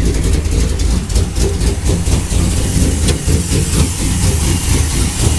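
A 5.7 HEMI V8 in a 1997 Dodge Ram 1500 idling while it warms up, with an uneven, choppy lope from its performance cam.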